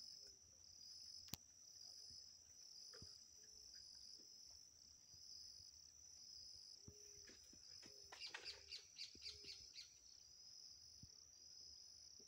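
Faint insects chirping in a steady, high-pitched pulsing rhythm. A single sharp click comes a little over a second in, and a quick run of about eight bird chirps comes around two-thirds of the way through.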